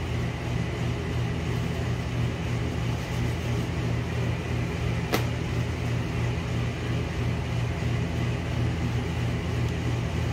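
Steady low mechanical hum of a running machine, with a single sharp click about halfway through.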